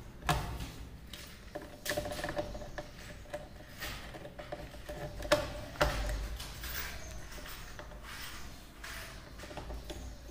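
A few scattered light clicks and taps over a low steady hum.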